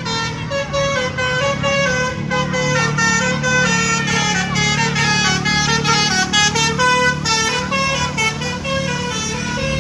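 A bus's multi-tone telolet horn playing a quick melody of many short notes with little gliding slides between them, over the low sound of the bus engine running.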